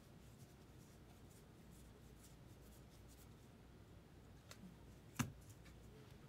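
Quiet handling of baseball cards: faint rustling and light ticks, with one sharp tap a little past five seconds in.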